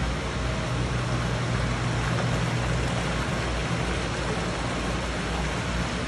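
Steady rush of flowing, aerated water in fish-rearing tanks over a low, constant machinery hum.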